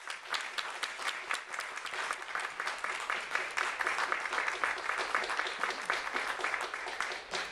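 An audience applauding.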